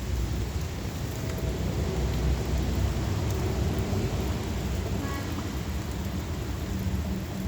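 Heavy rain falling steadily, with a low rumble of thunder underneath that swells slightly about two seconds in.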